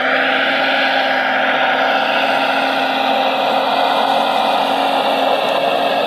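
Hydraulic pump of a radio-controlled Liebherr R 970 model excavator whining steadily as the boom and arm move.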